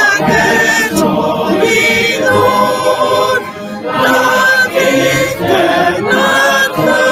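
A congregation singing a hymn together, holding long notes, with a brief break between lines a little after halfway.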